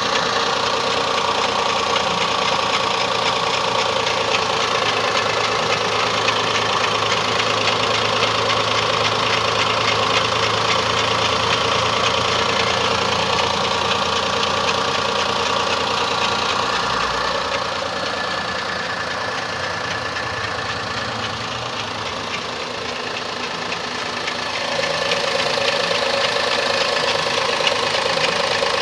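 Daihatsu Xenia 1000 cc three-cylinder engine idling steadily with an odd noise that the owner cannot identify; it runs a little quieter for several seconds past the middle, then returns to its earlier level.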